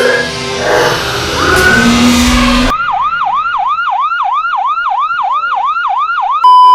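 Music with singing that cuts off abruptly about two and a half seconds in, replaced by a fast warbling siren, about three sweeps a second. Near the end a loud, steady, single-pitched beep takes over.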